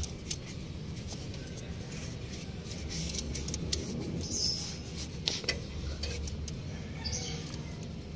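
Irregular clicks, small knocks and short squeaks of hand work on parts around the alternator of a Caterpillar backhoe engine, over a low steady hum.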